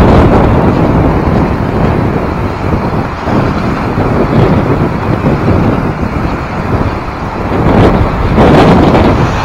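Wind buffeting the microphone: a loud, steady rumbling noise that swells louder about eight seconds in.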